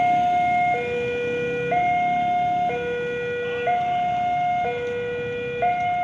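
Railway level-crossing warning alarm sounding from a loudspeaker on the crossing post: a steady two-tone hi-lo signal that switches between a higher and a lower note about once a second. It warns that a train is approaching and the barrier is closed.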